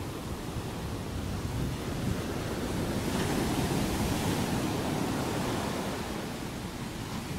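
Ocean surf washing onto a beach: a steady rushing that swells about three seconds in and eases off again over the next few seconds.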